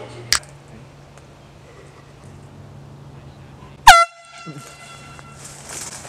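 An air horn sounds once, about four seconds in: a sharp, very loud blast that drops at once onto one steady pitch and fades over about a second. A short click comes near the start.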